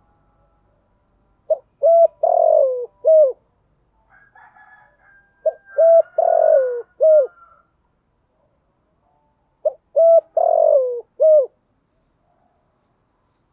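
Spotted dove cooing three times, about four seconds apart. Each phrase has a few short coos and a longer coo that falls in pitch, then a last short coo.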